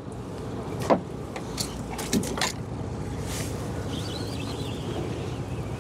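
Fishing boat's engine running with wind, a steady low rumble. A few sharp clicks and knocks come through in the first half or so.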